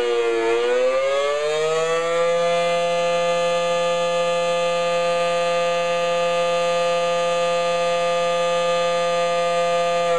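Federal Signal SD-10 electromechanical outdoor warning siren sounding during a tornado drill test. Its tone dips slightly in pitch and rises back within the first two seconds, then holds steady.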